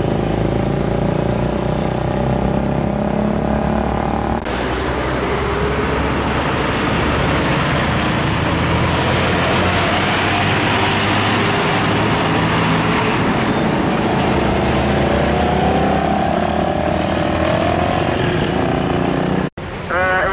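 Heavy diesel trucks driving past on a road. The first few seconds have a steady engine hum with a clear pitch. After a cut about four seconds in comes a long, dense rush of tyre and engine noise as a truck passes close. A brief cut-out near the end is followed by an engine rising in pitch.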